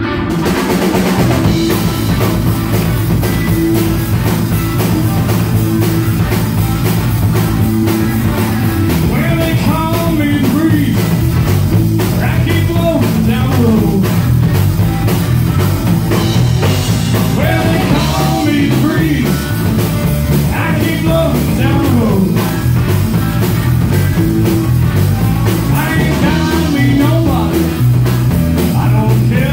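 Live rock band playing: electric guitar, electric bass and drum kit, with a man singing.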